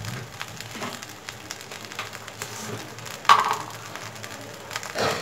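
Basmati rice frying in butter in a pan: a steady low sizzle with small clicks and scrapes, and one louder knock about three seconds in.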